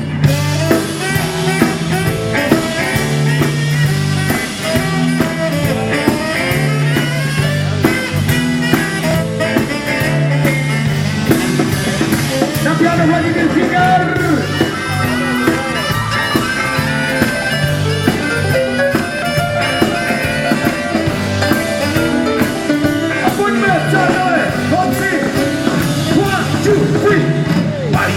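A live rock and roll band playing an instrumental break, with a walking bass line under a lead instrument soloing.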